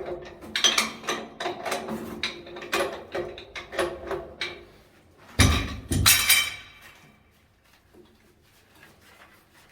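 Metal parts and tools clattering and knocking, with some ringing, then two loud metallic clanks about half a second apart a little past the middle, after which it goes quiet.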